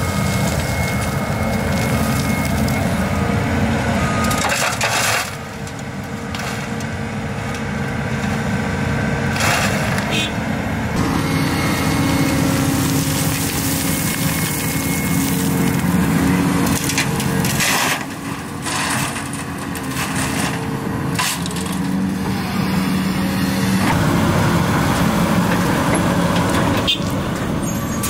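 Volvo EC750 excavator's diesel engine and hydraulics running and changing with the load as the bucket digs and lifts, with scraping and the clatter of dirt and stones spilling from the bucket.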